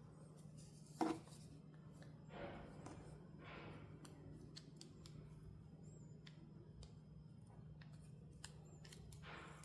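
Close-up handling sounds of toy packaging being opened: one sharp snip-like click about a second in, then several short rustling swishes and light ticks.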